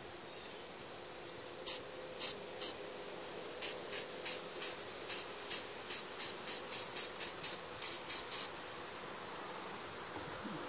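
Aerosol can of black spray paint pressed in short, quick spritzes, about twenty in a few seconds, then stopping. A steady insect drone runs behind it.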